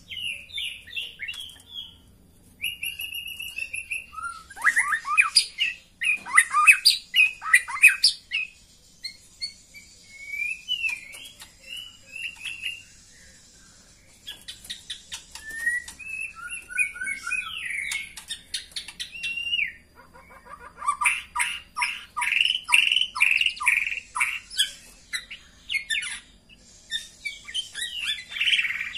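White-rumped shama calling: short whistled phrases broken by long runs of rapid, harsh chattering notes, with brief pauses between bouts.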